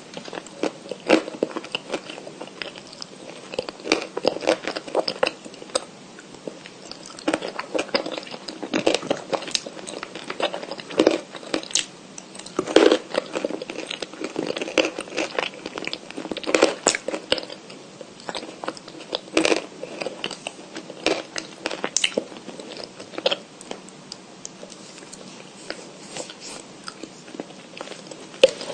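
Close-miked crunching and chewing of pieces of white cream chalk, with sharp, irregular bites and crunches throughout.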